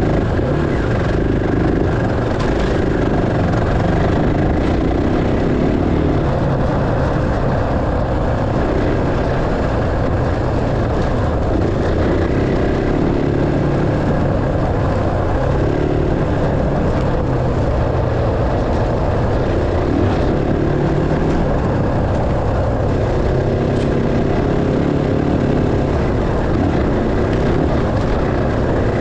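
Enduro dirt bike engine running as the bike is ridden off-road, its pitch stepping up and down every few seconds with throttle and gear changes.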